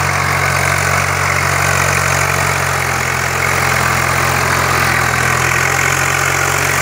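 Swaraj 744 FE tractor's three-cylinder diesel engine running steadily at constant revs as the tractor drives through soft soil and brush.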